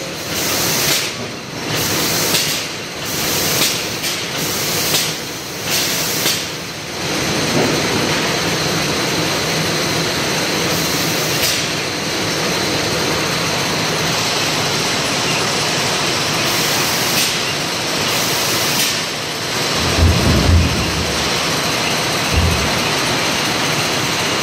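Packaging-line machinery running steadily: conveyors and an ABB delta robot case-packing frozen product. For the first several seconds hissing pulses repeat about once a second. Near the end come a few low thuds.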